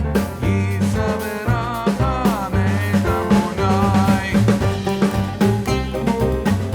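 Upbeat background music with a steady drum beat, bass and a sliding melodic lead.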